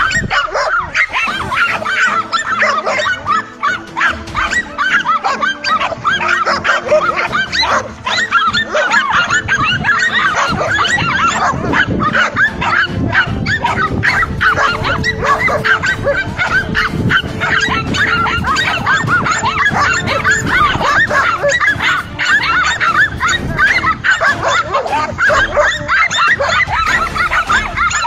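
Several dogs barking and yapping almost without a break, short rapid high barks overlapping one another as they hold a cornered lizard at bay.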